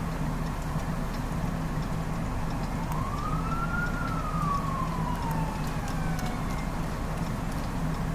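Blizzard wind blowing steadily, with scattered faint ticks. Partway through, a siren wails once, rising over about a second and then falling slowly over the next few seconds.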